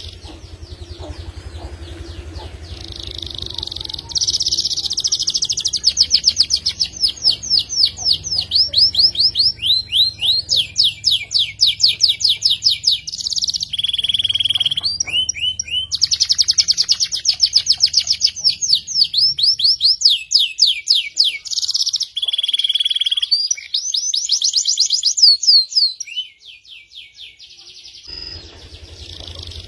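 F2 Yorkshire-cross (YS) canary singing loud, long, fast trills of rapidly repeated high notes, broken by a few short pauses. A low steady hum sits underneath for most of it and fades out about two-thirds of the way through.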